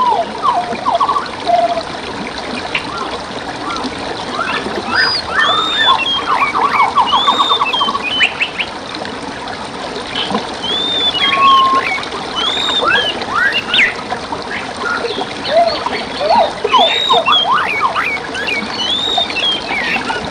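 Several songbirds calling over a steady trickle of running stream water: repeated arched, whistled notes, with a rapid trill of quick notes about a third of the way in.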